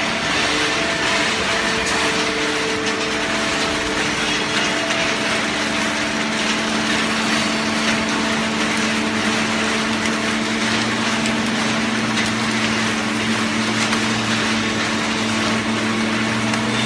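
Hydraulic baling press running, a steady mechanical noise over a hum of several steady tones, with a deeper hum setting in about ten seconds in.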